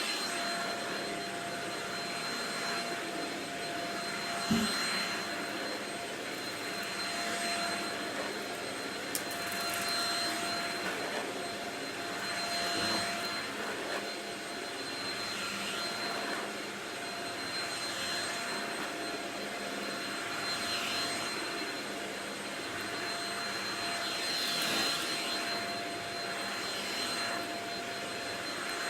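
Shark Rocket stick vacuum running steadily with a whine, its sound swelling and fading about every two to three seconds. A brief knock comes about four and a half seconds in.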